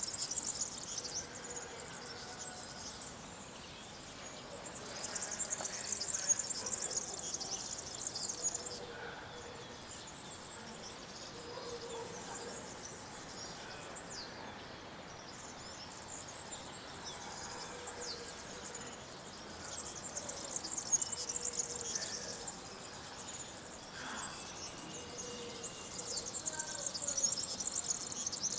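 Small birds twittering in high, dense bursts of a few seconds each, with a few short falling calls, over a faint steady background noise.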